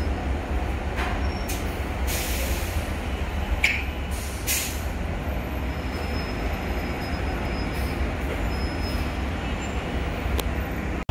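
A commuter train approaching slowly, with a steady low rumble and several short bursts of hiss about two to five seconds in.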